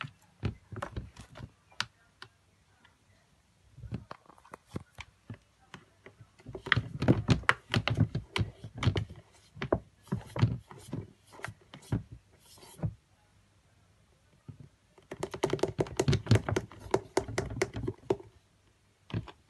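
Rapid tapping and scratching on a clear plastic storage drawer with a kitten inside, coming in several bursts of quick clicks and knocks. The longest burst lasts about six seconds and there is a quiet pause in the middle.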